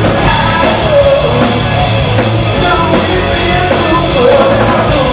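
Live rock band playing loudly: electric guitars, bass and drum kit, with a wavering melody line above.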